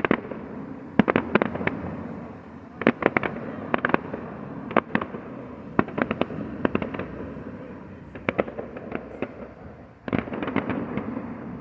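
Fireworks going off: a continuous rumbling crackle with many sharp bangs and pops scattered throughout, easing briefly about ten seconds in before more cracks follow.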